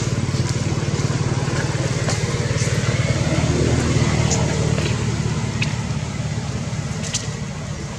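A motor engine running steadily, a low rumble that eases off a little over the last few seconds, with faint scattered clicks over it.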